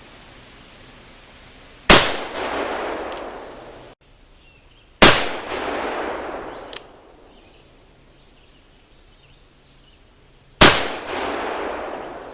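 Three shots from a .44 Colt 1847 Walker black-powder cap-and-ball revolver, a few seconds apart, each a sharp report followed by about two seconds of echo dying away.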